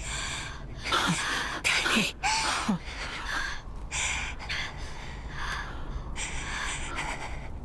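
A person gasping for breath over and over, heavy ragged breaths about every half second to second. Several of them end in a short voiced catch that falls in pitch.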